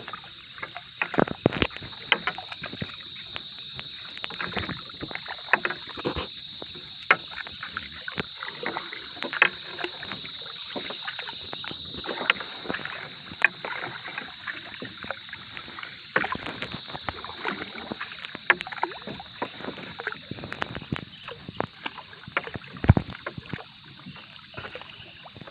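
Irregular knocks, clatter and water splashing from a small fishing boat at sea while a fishing net is being set over the side.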